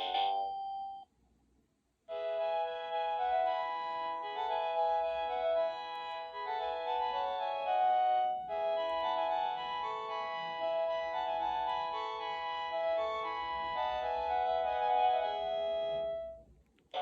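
Panasonic KX-TGD830M cordless phone playing one of its built-in ringtones through its speaker: an organ-like electronic melody of held notes. It starts about two seconds in, after the tail of the previous ringtone cuts off, and stops just before the end.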